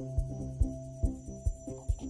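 Background music with a steady low beat, about two and a half beats a second, over a held bass note and short repeating pitched notes.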